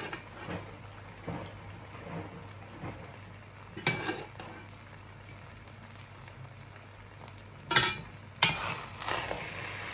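Fried rice with shrimps and vegetables sizzling softly in a nonstick pot. A few sharp knocks and clatters sound against the pot, one about four seconds in and the loudest near the end.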